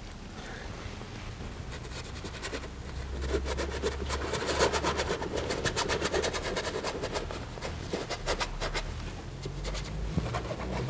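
Oil paintbrush scrubbing paint onto canvas in quick, repeated strokes, several a second, starting about two seconds in and stopping near the end.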